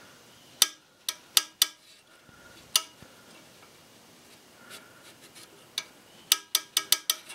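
Sharp metallic clicks as the throttle control lever on a Briggs & Stratton 14.5 hp OHV engine's throttle bracket is worked back and forth by hand, the lever and governor linkage tapping against their stops as the governor spring tightens and slackens. A few scattered clicks come in the first three seconds, then a quick run of five or six near the end.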